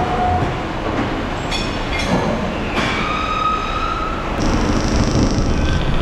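CNC lathes machining metal parts: a steady machine rumble with high-pitched squeals and whines from the cutting, including a high steady whine near the end.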